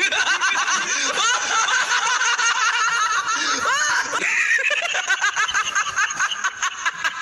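A man laughing: a long, unbroken run of quick, repeated ha-ha laughs, a villain-style film laugh.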